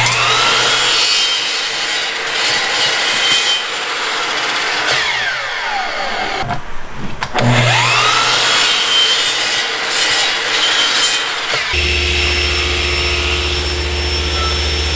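A Makita miter saw spins up and crosscuts a wooden board, then winds down with a falling whine. It starts again and makes a second cut. About twelve seconds in, a table saw takes over with a steady hum as a board is fed through its spinning blade.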